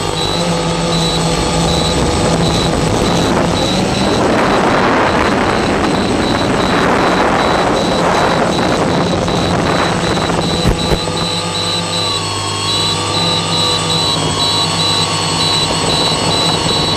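Multirotor octocopter's motors and propellers humming steadily. A rush of air swells in the middle as the craft speeds up, then fades as it slows. One sharp click comes near the end of the rush.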